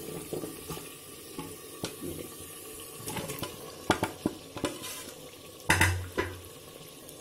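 Fried chicken pieces tipped from a plate into a clay handi of hot gravy and stirred with a wooden spoon: a low, steady sizzle under a string of clicks and knocks of the pieces and spoon against the earthenware pot and plate, with a louder knock about six seconds in.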